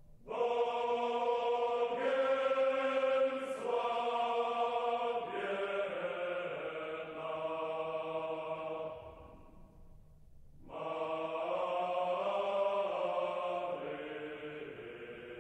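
Slow chant-like vocal music: long held sung chords that change every second or two, fading away for about a second near the middle before coming back.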